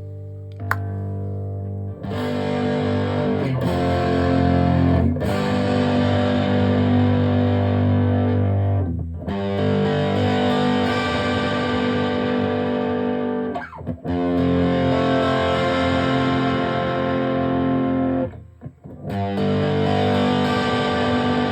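Electric guitar played through a homemade overdrive pedal built from a cassette player, giving distorted, sustained chords. The chords ring thick and gritty from about two seconds in, with brief breaks between them.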